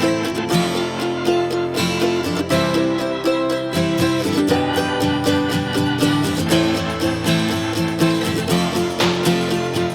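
Background music led by plucked acoustic guitar in a country or bluegrass style, with a steady rhythm.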